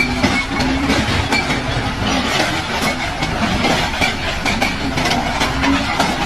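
Loud, continuous mechanical clattering and rattling, with many sharp clicks and knocks at uneven spacing over a steady noisy rumble.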